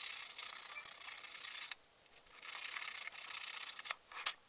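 Hand sanding: folded sandpaper rubbed back and forth over a small car window-glass clip to rough its surface for adhesive. It is a steady scratchy rasp in two spells with a short pause a little before the middle, and one brief scrape near the end.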